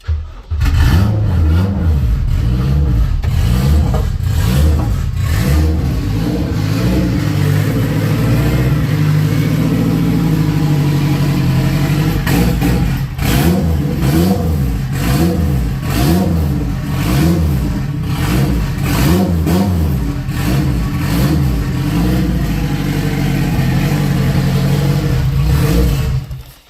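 Turbocharged Honda K20 four-cylinder engine running at its first start-up, the revs held up and blipped again and again so the pitch keeps rising and falling. It is running lean and would cut out at idle, which is why the throttle is kept open. The sound stops abruptly near the end.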